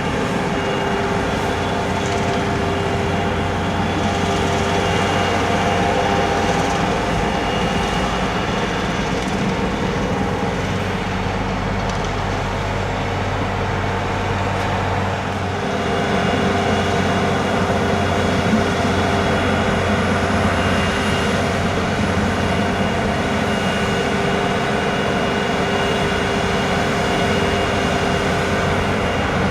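Snow-clearing vehicle running steadily, a continuous engine and machinery noise with a constant hum; the sound shifts slightly about halfway through.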